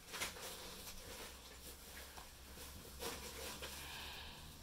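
Quiet room tone with a low steady hum and a few soft clicks and rustles of handling, the clearest about a quarter second in and again about three seconds in.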